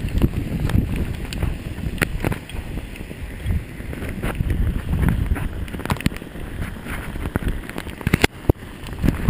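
Hailstones striking the camera and rider as sharp, irregular clicks, a dozen or more, over a steady low rumble of wind on the microphone from riding.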